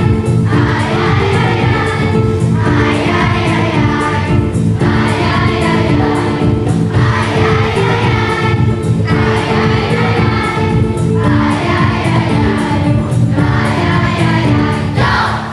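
Children's choir singing a Christmas song in unison over steady instrumental accompaniment, in sung phrases about two seconds long. The music ends abruptly on a final chord near the end.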